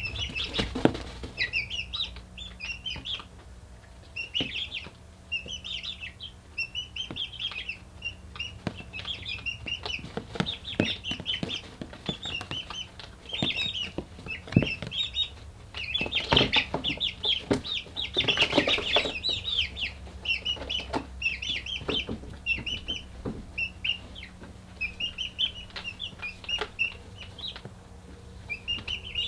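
Young chickens peeping in a brooder: clusters of short high chirps throughout, thickest a little past the middle, with scattered sharp taps among them.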